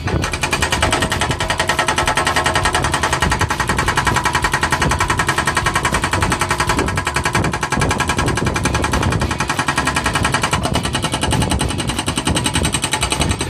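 Excavator-mounted hydraulic breaker hammering concrete rubble, a fast steady stream of many blows a second.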